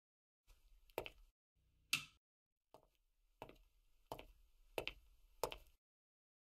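Six sharp clicks of a small plastic switch being pressed, roughly one a second.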